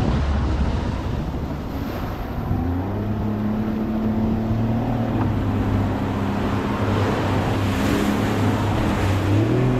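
Outboard motor of a fishing panga running under power through breaking surf, its steady hum coming up about two and a half seconds in over the rush of waves and wind on the microphone.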